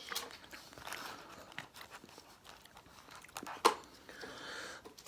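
Faint eating and handling noises from someone eating chicken wings, with one sharp click about three and a half seconds in.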